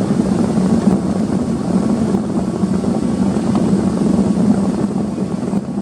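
Heavy farm machinery's diesel engine running steadily under load, a low drone that drops in level near the end.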